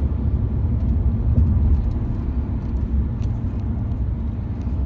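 Car driving at freeway speed: a steady low rumble of engine and tyre noise.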